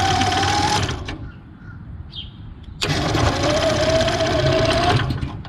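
Golf cart starter-generator spinning the Honda GX340 engine over in two bursts of about two seconds each, a whirring crank with a slowly rising whine; the first burst stops about a second in, the second starts near the three-second mark. The key-switch wiring to the solenoid trigger is working.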